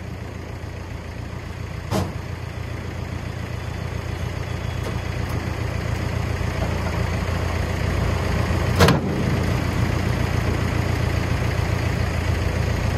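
Kubota M1-85 tractor's diesel engine running, driving its PTO rotary tiller so that the blades turn. The engine grows slowly louder. There is a sharp knock about two seconds in and a louder one near nine seconds.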